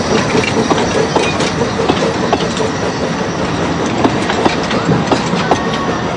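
Narrow-gauge railway carriages rolling past close by, their wheels clattering and clicking over the rails in a steady, loud run of irregular clicks.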